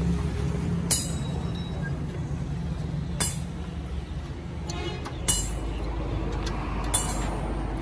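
Metal hand tools clinking on the parts of a diesel engine being reassembled: four sharp clinks about two seconds apart, with a quick run of ticks just before the third. Under them a steady low hum of a motor running in the background.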